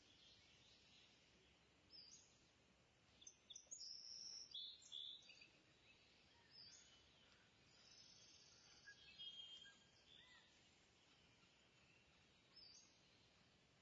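Near silence with faint high-pitched chirps scattered through, busiest from about three to five and a half seconds in.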